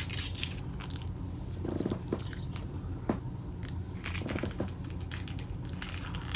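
A person biting into and chewing fast food close to the microphone, with several crisp crunches and mouth clicks spread through, over a steady low hum.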